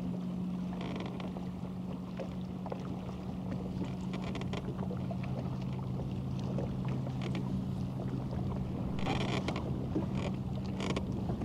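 A boat motor running with a steady low hum, over light wash of water and wind noise, with a few faint clicks.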